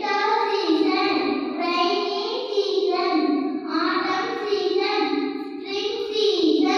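A young boy singing unaccompanied into a handheld microphone: one continuous phrase of held notes that move up and down in pitch.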